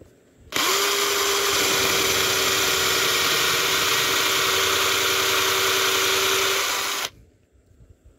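Power drill boring a hole into a wooden board: the motor spins up quickly about half a second in, runs at a steady pitch for about six seconds, then cuts off suddenly.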